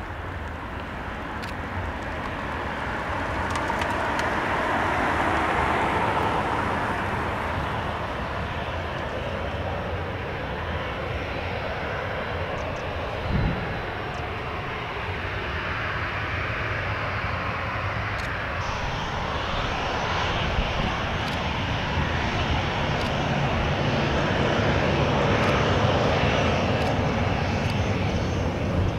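Boeing 737-800 airliner's CFM56 jet engines, a steady noise that swells, eases, then builds again, with a single brief thump about halfway through.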